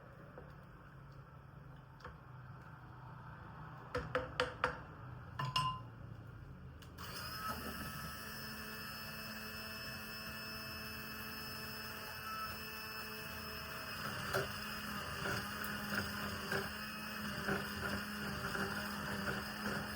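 A few light clinks of kitchenware, then a kitchen appliance motor switches on about seven seconds in and hums steadily, with scattered light knocks and clatter over it later.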